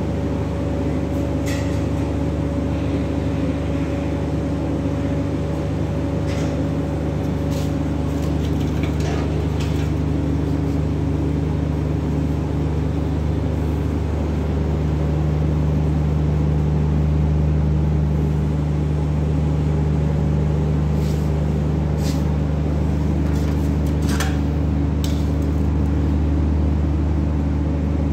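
A steady low mechanical hum with several even pitches, growing a little louder about halfway through, with a few scattered light clicks and knocks over it.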